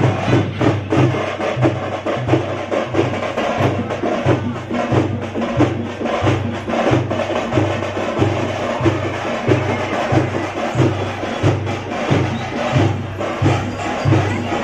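Tamate frame drums beaten with sticks in a fast, steady rhythm. Deep beats come about one and a half times a second, with dense sharp stick strikes between them.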